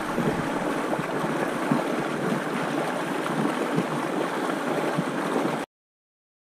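A small stream flowing steadily over a rocky riffle, heard from right at the water's surface; it cuts off suddenly near the end.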